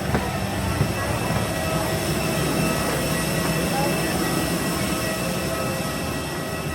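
Indoor ambience of an airport arrival hall: a steady mechanical rumble with faint, steady whining tones over it, and voices murmuring in the background.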